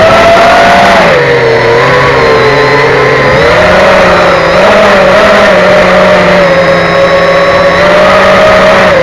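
The brushless motors and three-blade 5-inch propellers of an FPV racing quadcopter (Racerstar 2205 2300KV motors), heard through its onboard camera. A loud, steady buzzing whine drops in pitch about a second in and rises again a couple of seconds later as the throttle changes.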